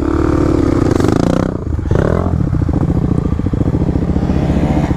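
Kawasaki KLX300 dirt bike's single-cylinder four-stroke engine running steadily at low revs under the rider, with a brief blip in revs about two seconds in.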